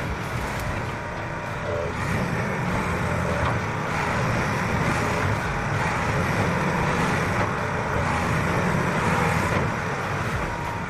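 Volvo 480 excavator's diesel engine running steadily, a little louder through the middle.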